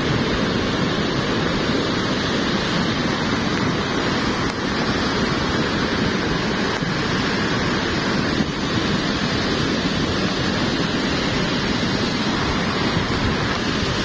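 Semeru lahar, a torrent of volcanic mud and boulders, rushing past in a steady roar.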